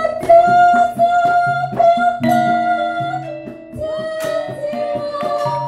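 Javanese gamelan ensemble playing, with bronze metallophone keys struck and ringing. A female singer holds long, slightly wavering notes into a microphone over it.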